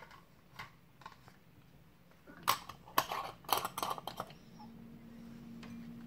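A red screw-on lid being fitted and twisted onto a glass mason-jar mug, a quick run of sharp clicks and scrapes of lid against glass about halfway through, after a few light taps. A faint steady low hum sets in near the end.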